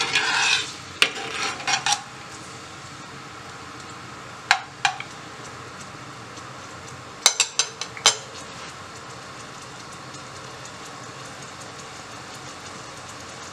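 A spoon stirring sliced onion in oil in an earthenware pot, knocking and scraping against the pot in clusters of clicks: during the first two seconds, twice around four and a half seconds in, and in a quick run around seven to eight seconds in. A steady low hiss runs underneath.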